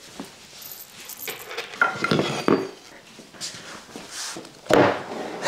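Wooden legs of a dismantled bamboo table knocking and clattering as they are handled and carried, a few sharp knocks with rustling between them.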